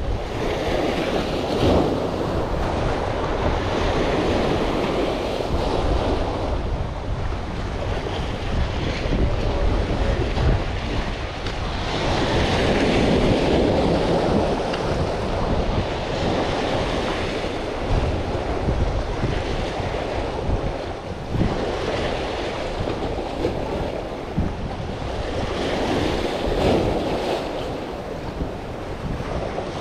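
Sea waves washing and splashing against the jetty, swelling in surges several seconds apart, with wind rumbling on the microphone.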